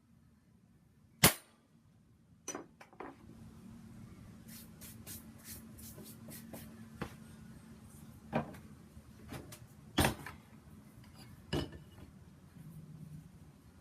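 Metalworking on a steel plate: one sharp metal clang about a second in, then a faint steady hum with scattered clicks and knocks of metal being handled, the loudest knock about ten seconds in.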